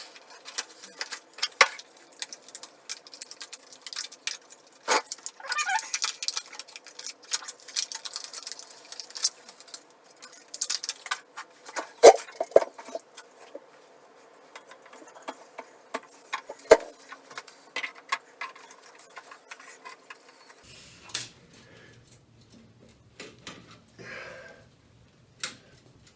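Handling noises from working on a toilet and its plastic riser: irregular clicks, light knocks, scraping and rustling, with a sharper knock about halfway through. A low steady hum comes on about three quarters of the way through.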